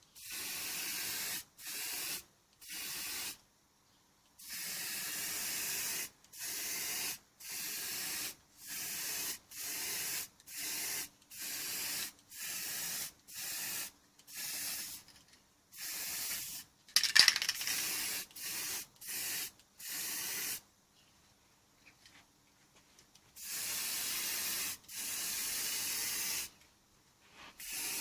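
Repeated short bursts of spray hiss, about twenty of them, each lasting roughly half a second to a second and a half with brief gaps between, one burst about two-thirds of the way through louder than the rest, and a pause of a few seconds near the end.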